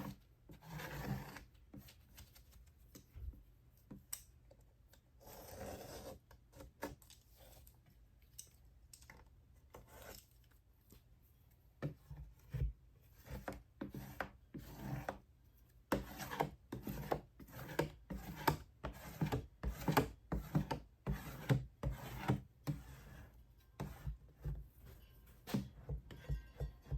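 Plastic squeegee scraping over wet window film on glass in many short repeated strokes, working the film into place against the window. The strokes are sparse at first and come quickly, about one to two a second, through the second half.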